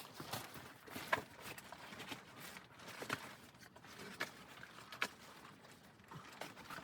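A string of irregular knocks and clicks with soft scraping between them, the sharpest about a second in, three seconds in and five seconds in.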